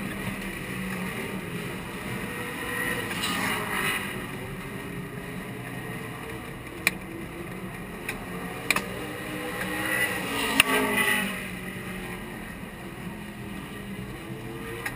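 Engine running steadily with a low hum, swelling and gliding in pitch twice, about three seconds in and again near ten seconds, with a few sharp clicks in between.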